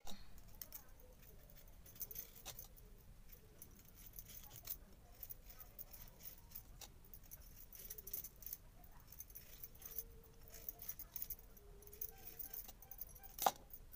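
Faint scraping of a hand peeler taking the skin off a white radish (muli), with scattered light clicks and the jingle of bangles on the wrists; one sharper click near the end.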